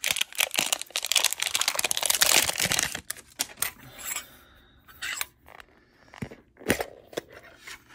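The seal strip being torn and peeled off a metal Poké Ball collector's tin, a dense crackling and tearing for about the first three seconds. After that come a few scattered clicks and taps as the tin is handled.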